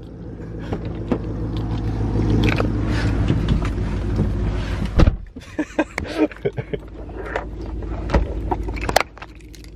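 A car engine running steadily, heard from inside the cabin, swelling over the first few seconds and then easing. Handling clicks run through it, with a loud knock about five seconds in.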